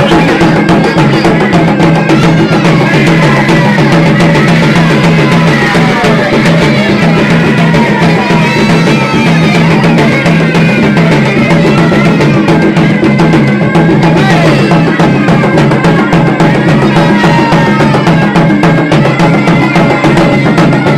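Gendang drums of a trance-possession ritual beating a dense, steady rhythm, with a wavering higher melody running over them.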